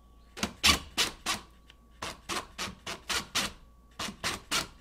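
A cordless screw gun driven in short bursts, about three a second, turning the adjustment screw of an adjustable electrical box to draw the box forward flush with the backsplash.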